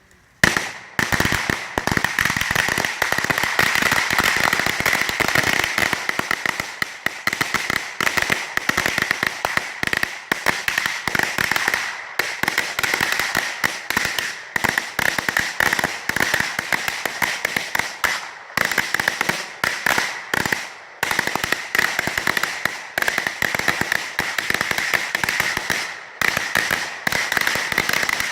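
A 1,000-count string of firecrackers going off in a rapid, continuous rattle of cracks. It starts about half a second in and has a few brief lulls.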